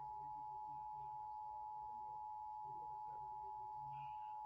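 Emergency Alert System attention signal: the steady two-tone alert, two pure tones just under 1 kHz sounding together, held without a break.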